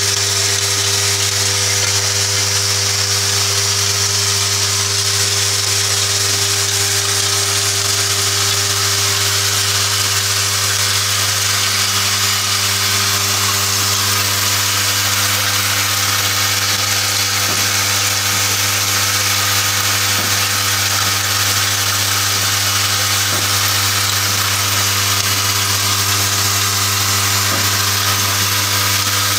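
Automatic MCB box clamping and screwing assembly machine running: a loud, steady electric buzz, with a few faint clicks in the second half.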